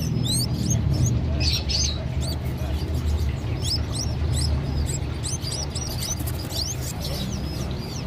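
Many caged birds chirping: a busy run of short, quick, sliding chirps, over a steady low hum.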